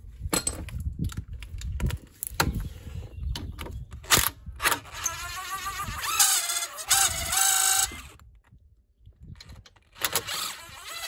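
A DeWalt 18V brushless impact driver undoing a brake caliper guide bolt: a few seconds of clicks and knocks as the socket goes on, then the driver runs in two bursts, its motor whine changing pitch as it spins the bolt, the second burst shorter and near the end.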